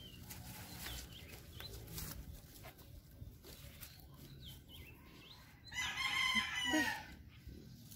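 A rooster crowing once, a single crow of a little over a second about six seconds in, over faint background noise.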